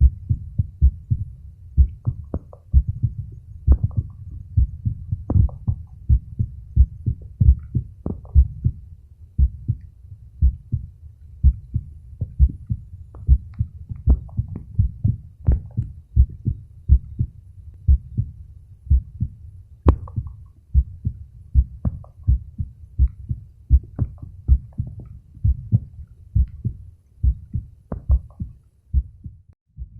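A man's heartbeat recorded through a smartphone microphone pressed against his chest: a steady, even rhythm of low thumps. A few sharper clicks reach higher, the strongest about twenty seconds in.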